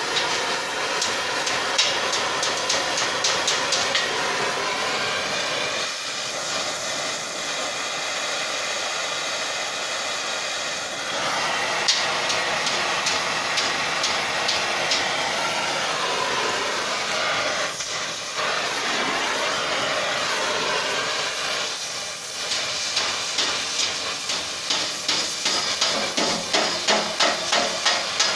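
A gas torch flame hissing steadily as it heats a wrapped steel collar. In the last few seconds a hammer strikes the hot quarter-inch round bar about twice a second.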